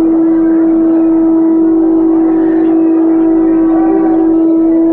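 Conch shell (shankha) blown for the temple aarti in one long steady note that wavers slightly near the end, over the hubbub of a crowd.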